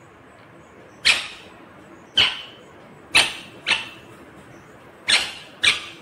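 Rose-ringed parakeet giving six short, sharp, shrill calls at irregular intervals, the last four in two quick pairs.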